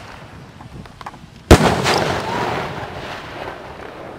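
Aerial shells from a consumer fireworks cake bursting overhead: one loud bang about one and a half seconds in, echoing and rolling away over the next couple of seconds.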